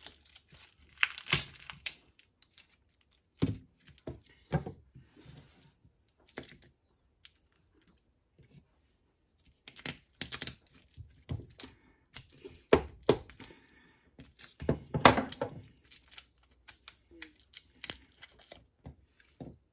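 Serrated knife cutting a raw onion on a wooden cutting board: irregular crisp crunches and knife strokes against the wood, coming in short clusters with pauses between.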